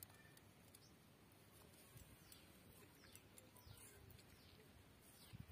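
Near silence: quiet outdoor background with a few faint, short falling bird chirps scattered through it.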